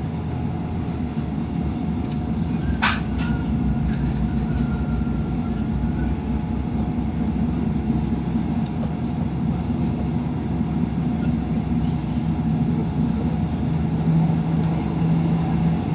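Inside the passenger saloon of a Class 158 diesel multiple unit running at speed: a steady rumble from the train's diesel engine and its wheels on the rails. A single sharp click comes about three seconds in, and the low engine hum grows a little stronger near the end.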